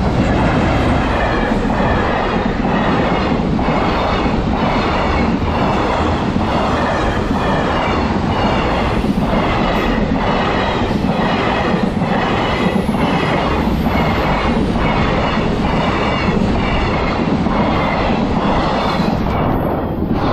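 Freight train wagons rolling past at close range, their wheels clattering over the rail joints in a steady, even rhythm over a continuous rumble.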